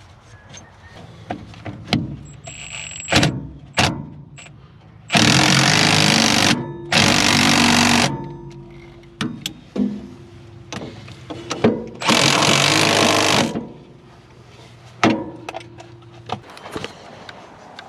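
Impact wrench tightening the bolts on a swather driveline: three loud runs of hammering, each a second or more long, with metal clicks and knocks of tools and parts in between.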